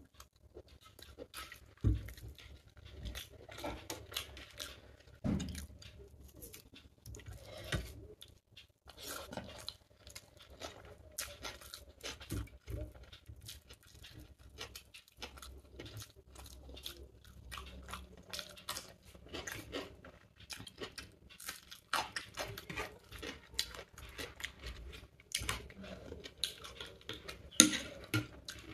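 Close-up chewing of chicken biryani eaten by hand, with wet mouth clicks and smacking and a few short knocks. The sharpest knock comes near the end.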